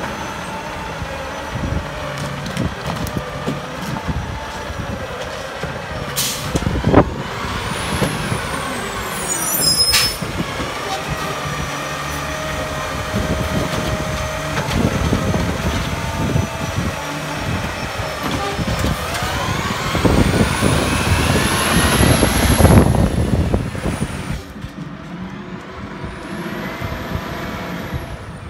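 Autocar ACX garbage truck with a New Way Roto PAC automated side-loader body running, with sharp knocks as its arm grabs and empties curbside carts. Later comes a loud hiss of the air brakes and the truck pulling away.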